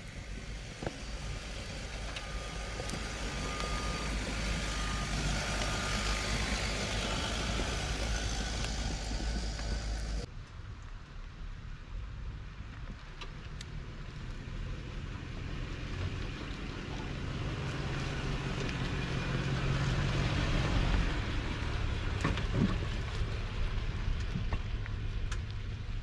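Off-road SUVs crawling along a dirt trail, engines running low with tyre noise. After a cut about ten seconds in, a Lexus GX's engine hum grows louder as it drives close by, then eases near the end.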